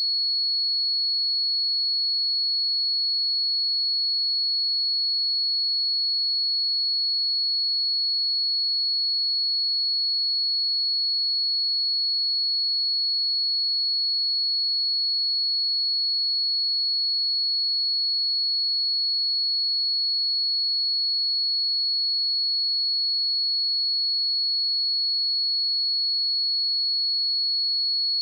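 A pure 4362 Hz sine-wave test tone, one high steady pitch held without change.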